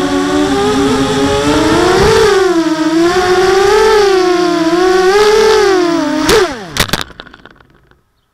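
Blackout Mini H quadcopter's four T-motor 1806 2300kv brushless motors with 5x4 props whining, the pitch wavering up and down with throttle. About six seconds in it touches down with a few knocks, and the motors spin down in a quick falling whine and stop.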